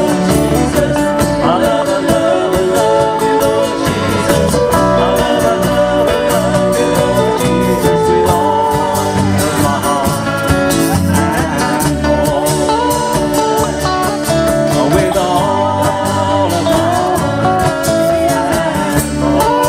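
Live band playing a song: electric guitars, bass guitar and a cajon under singing.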